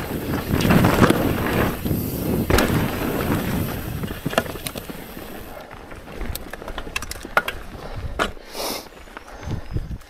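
Mountain bike descending a dry dirt trail: tyres rolling and crunching over loose ground and rocks, with knocks and rattles from the bike over bumps. Rougher and louder in the first half, then quieter with scattered sharp clicks from about halfway.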